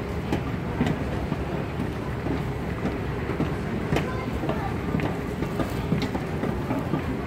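Moving walkway running with a steady low rumble and a few scattered light clicks, under the murmur of voices in a busy airport terminal.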